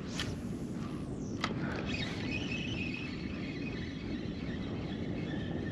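Wind buffeting the microphone over open water, a steady low rumble, with two sharp clicks in the first second and a faint steady high whirr from about two seconds in.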